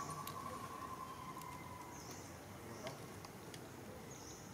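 Faint outdoor ambience: a steady high-pitched insect trill that fades away about two seconds in, with a few faint short chirps and clicks.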